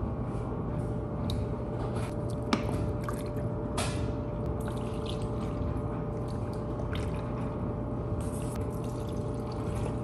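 Tap water running steadily into a sink and splashing as clothes are washed by hand, with a few light knocks and clicks.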